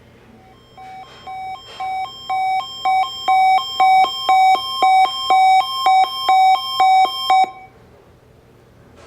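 Electronic alert beeping from a weather radio receiver, about two beeps a second, growing louder over the first few seconds, then stopping suddenly. It is the receiver's alarm set off by the NOAA Weather Radio Required Weekly Test.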